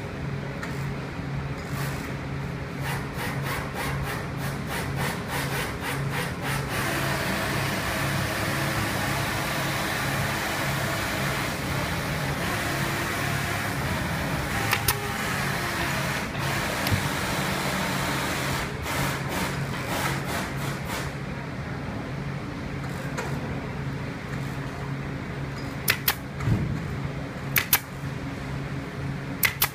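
Pneumatic upholstery staple gun firing sharp shots, some singly and some in quick strings, over a steady machine hum.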